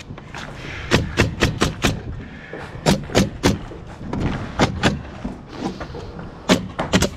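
Bostitch pneumatic framing nailer firing nails into framing lumber and plywood in quick bursts: a run of about five shots, then three, two and three more.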